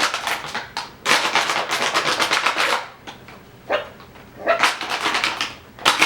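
Empty plastic water bottle crinkling and crackling in bursts as Coton de Tulear puppies paw and push it, with a short puppy yip about four and a half seconds in.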